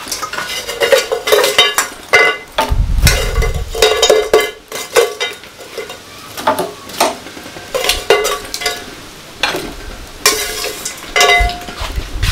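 Metal spoon scraping and clinking against pots as cooked food is scooped and stirred: an irregular run of scrapes and knocks, several with a short metallic ring, and a dull thump about three seconds in.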